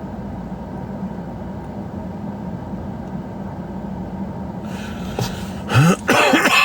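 Steady low hum and rumble of a running vehicle. Near the end, a man's voice starts up, louder than the hum.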